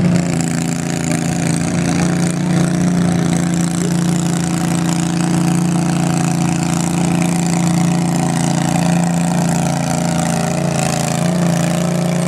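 Garden tractor engine running at steady, constant revs under load as it tows a weighted pulling sled down the track.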